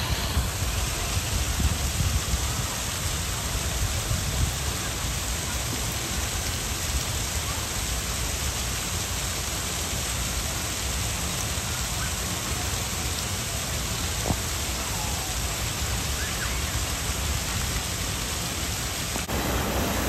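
Steady rush of churning water from a river rapids ride's channel, with a low, uneven rumble underneath.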